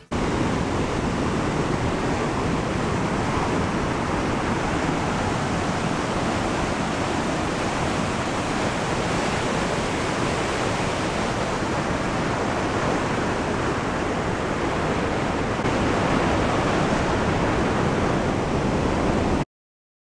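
Churning whitewater at the foot of a waterfall, a steady loud rushing noise heard close up, a little louder in the last few seconds before it cuts off suddenly near the end.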